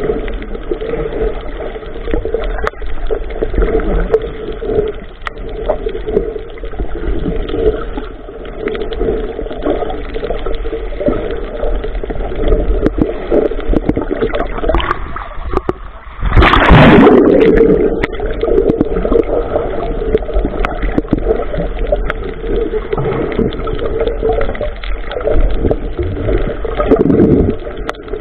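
Boat on the water with a steady motor hum and water noise against the hull; a louder rush of noise comes a little past halfway and lasts about a second and a half.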